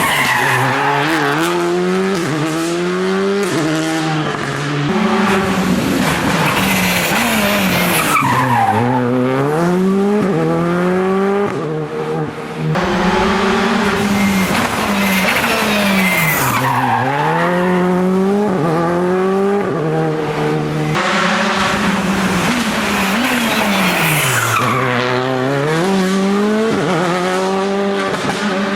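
Rally car engine working hard on a special stage, its pitch climbing and falling with the gear changes; it slows right down about four times and accelerates away again after each.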